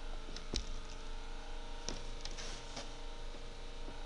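Steady electrical hum with a few short clicks and a brief soft rustle scattered through it.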